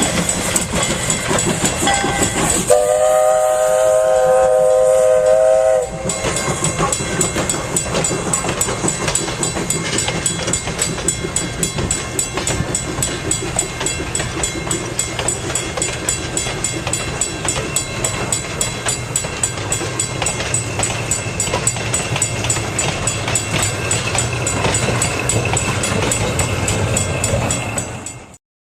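Steam locomotive whistle blowing one chime blast of about three seconds, then the train running past with a steady, rapid clatter that cuts off just before the end.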